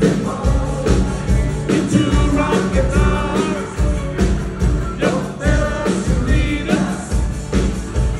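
Live rock band playing an 1980s medley: a singer's voice over a steady drum and bass beat, about two beats a second.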